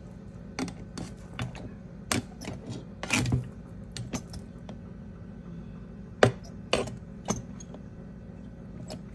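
Rice paddle scraping and tapping against a rice cooker's inner pot while fluffing cooked rice: irregular knocks and short scrapes, the sharpest about six seconds in, over a low steady hum.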